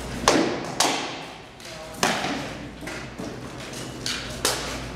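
Rattan swords striking shields and armour in armoured sparring: about six sharp cracks and thuds, the loudest near the start and about two seconds in, each echoing in a large hall.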